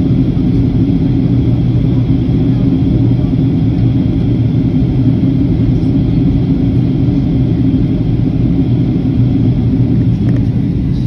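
Steady cabin noise inside a Boeing 737-800 airliner in flight: the low rumble of its CFM56-7B turbofan engines and the rushing air, with a faint high whine.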